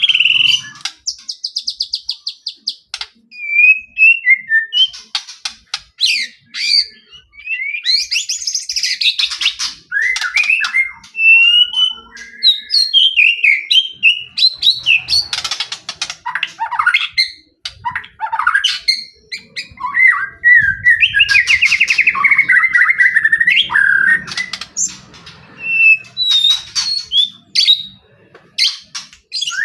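White-rumped shama (murai batu) in full, active song: a run of varied phrases of gliding whistles, fast trills and bursts of rapid sharp notes, with short pauses between them.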